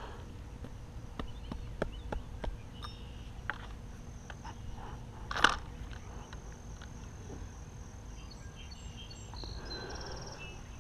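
Scattered light clicks and one louder knock about five seconds in from a fishing rod and spinning reel being handled and set into a rod stand. Under them run a low wind rumble and a steady high insect buzz.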